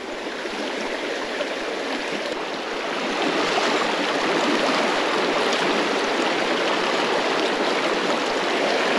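Shallow mountain creek running over rocks in a riffle close by, a steady rush of water that grows a little louder about three seconds in.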